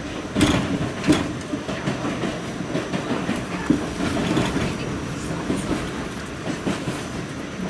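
R46 subway car running through the tunnel between stations, a steady rumble with the wheels knocking over rail joints, sharpest about half a second and a second in.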